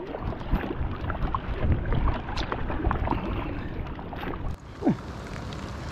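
A small boat being rowed: the oars dip and pull through the water, with many small scattered taps in the rain. There is a short falling squeak near the end.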